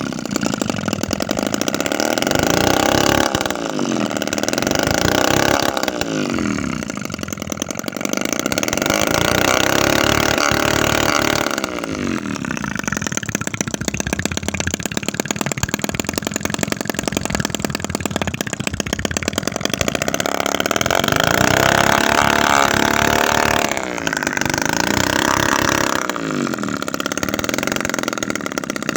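Tiny homemade 7cc two-stroke engine (25 mm bore, 16 mm stroke), built from a used refrigerator compressor, running and revving, its speed rising and falling over and over.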